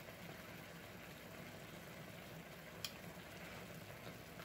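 Black tea and pineapple pan gravy simmering as it reduces: a faint, steady bubbling, with one light click about three seconds in.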